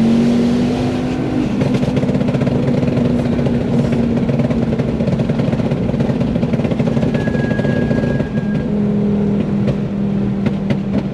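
Heavily tuned turbocharged Ford Focus ST engine running hard, heard from inside the car. Its pitch steps down a couple of times, over a constant crackle, and near the end a quick run of sharp cracks like exhaust pops comes in.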